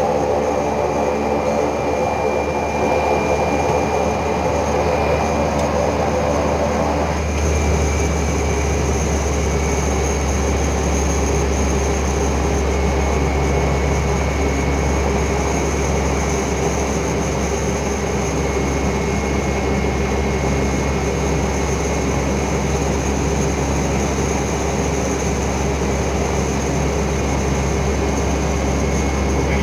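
Single-engine turboprop running, heard inside the cockpit during the takeoff run. About seven seconds in, its sound changes, the steady tones dropping away and the low rumble growing stronger, and it then holds a steady drone.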